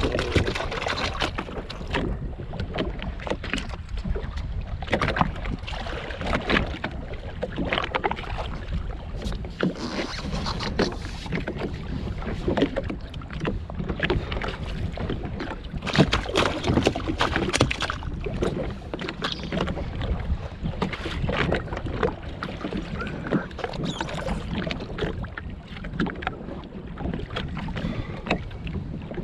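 Wind buffeting the microphone and small waves slapping against a jetski's hull, with frequent irregular knocks and splashes.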